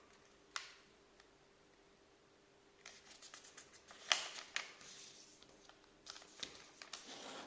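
A sheet of origami paper rustling and crinkling as it is handled, folded and creased by hand: a single soft tap about half a second in, then a run of crackles from about three seconds in, the sharpest just after four seconds.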